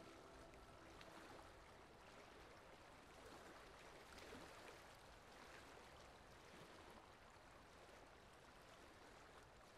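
Near silence: a faint, steady hiss with small scattered crackles.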